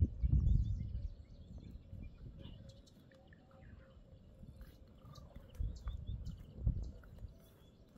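Faint short bird chirps, with low rumbling surges near the start and again about six seconds in.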